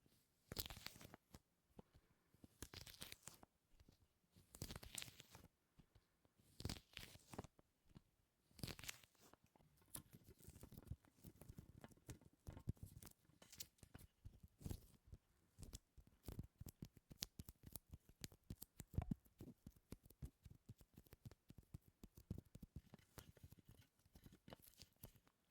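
Quiet, close-miked sticky ASMR sounds: something tacky is pressed and peeled apart with a tearing crackle. For the first ten seconds or so the strokes come about every two seconds, then they give way to a denser run of small sticky crackles and clicks.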